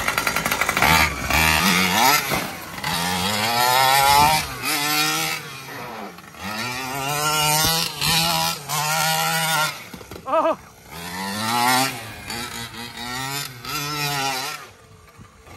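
Primal RC Game Over monster truck's petrol two-stroke engine revving up and down as the truck is driven, its pitch rising and falling over and over, with a fast even putter in the first second.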